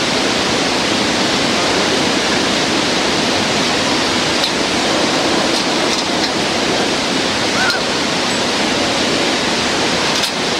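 Steady rush of a whitewater river running through rapids, an even loud noise without breaks.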